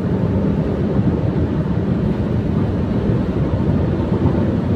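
Steady rush of wind and road noise from a Mitsubishi Strada pickup driving at highway speed, heard through an open side window, with wind buffeting the microphone.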